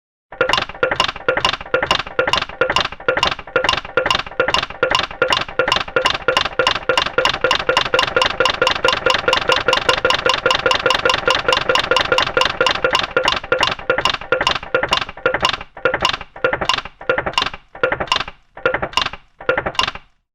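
A fast run of ringing clicks, about five to seven a second, that spaces out and stops just before the end.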